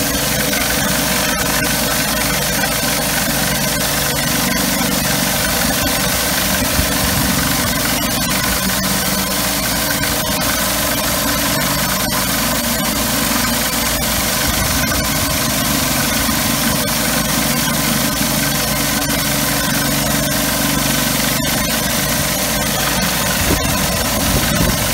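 Pressure washer running steadily while a surface cleaner blasts water onto a concrete driveway: a constant engine hum under a loud spray hiss.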